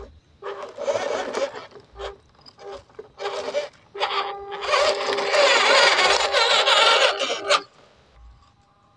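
Small RC crawler's electric motor and gearbox whirring in short throttle bursts, then one longer run of about three and a half seconds that stops suddenly, with the tyres working over dirt and dry leaves.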